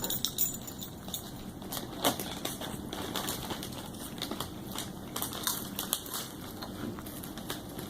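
Dill pickle potato chips crunching as they are chewed: irregular crisp crackles, the sharpest near the start and about two seconds in.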